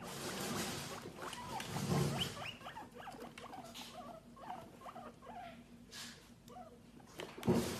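Guinea pigs making short, repeated falling squeaks while shuffling through wood-pellet and hay bedding, with a sharp knock near the end.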